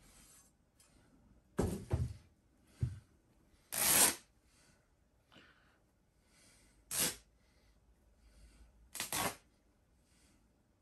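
Plush fabric and stuffing of a large stuffed toy dog being torn and pulled apart by hand, in about five short ripping bursts, the loudest about four seconds in.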